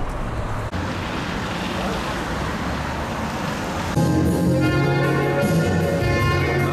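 Steady road and engine noise inside a moving car's cabin; about four seconds in, it gives way to a saxophone playing a melody over backing music with a bass line.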